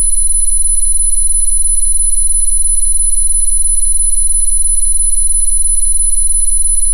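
Steady synthesized frequency tones: one loud, very high-pitched tone held without change, with several fainter steady tones and a low hum beneath.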